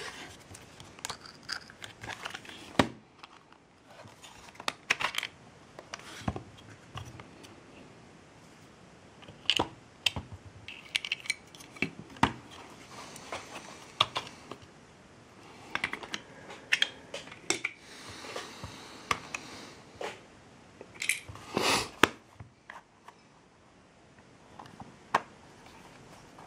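An LED inspection lamp and small hard parts being handled at close range: irregular clicks, taps and short scrapes, with a few sharper knocks.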